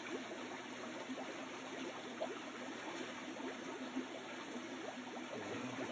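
Steady rush and trickle of running water, with a few small splashes as wet fish are handled in a net.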